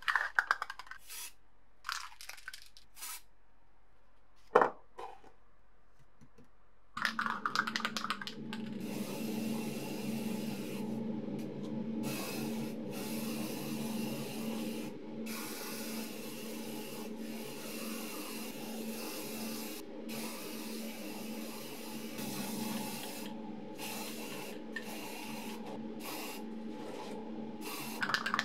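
Spray painting: a steady hiss of paint spray over a constant motor hum, starting about seven seconds in and briefly breaking off several times. Before that come a few sharp clicks and knocks.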